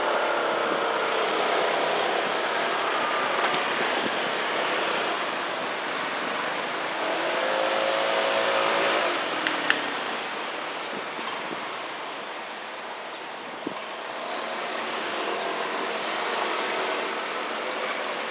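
Road traffic: cars passing one after another on a street, each one's engine and tyre noise swelling and then fading with a falling pitch as it goes by. A couple of sharp clicks come about ten seconds in and again near fourteen seconds.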